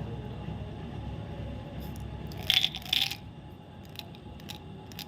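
Two short, loud crinkling snaps about half a second apart, then a few faint clicks, from a Dairy Milk chocolate bar's wrapper being handled or opened.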